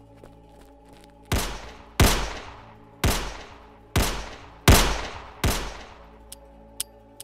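Six pistol shots fired in quick, uneven succession, each with a long echoing tail. A few light clicks follow near the end.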